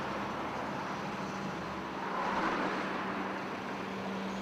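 Road traffic noise with a steady hum, and one vehicle passing louder about two seconds in.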